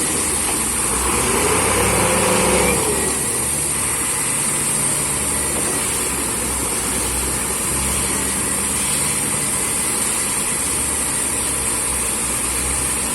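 Borewell drilling rig's engine and air compressor running steadily, with a constant high hiss. About two seconds in the sound briefly gets louder, with a tone that rises and falls in pitch.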